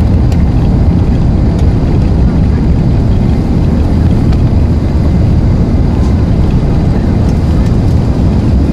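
Airbus A380-842 cabin noise during climb-out just after liftoff: a loud, steady rumble from the Rolls-Royce Trent 900 engines with a hiss of rushing air, heard from inside the cabin beside the wing.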